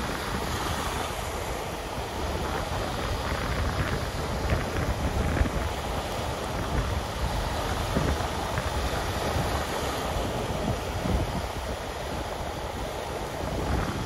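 Small Baltic Sea waves breaking and washing up on a sandy beach, a steady surf wash, with wind gusting on the microphone.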